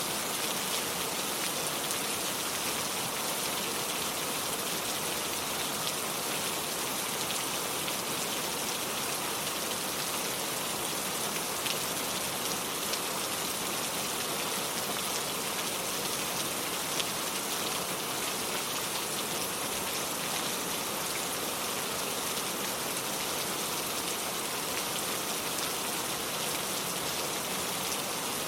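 Steady rain falling on hard surfaces, with a dense patter of drops and a few louder single drops.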